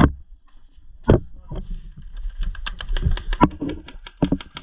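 Airsoft gunfire: two sharp pops near the start, then from about halfway a quick, irregular patter of sharp clicking shots, several a second.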